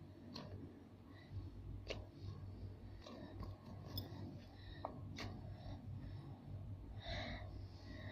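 Faint handling sounds: a few scattered light clicks and taps with soft rustling as a squishy toy is held and squeezed, over a low steady hum.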